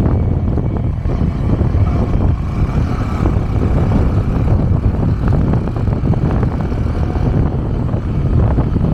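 Motorcycle riding at road speed: a steady low rumble of engine and wind noise.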